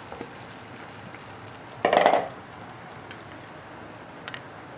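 Boiled mashed potatoes being tipped into a hot frying pan of oil and spices: one short loud scrape and thud about two seconds in, then a couple of light clicks.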